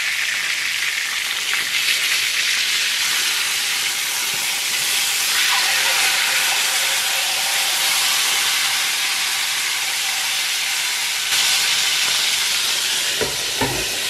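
Whole chicken frying in hot oil in a deep pan, sizzling steadily while it is turned over with tongs. A few knocks come near the end.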